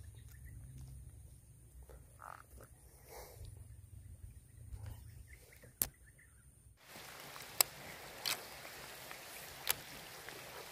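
Frogs croaking faintly over low handling rumble. About seven seconds in, the sound cuts to a steady hiss of light rain with a few sharp taps of drops.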